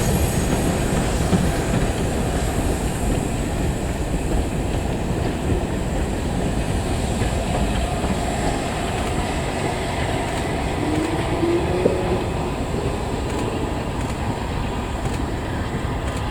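Steam-hauled mainline train running past, its coach wheels clicking over the rail joints with a steady rumble.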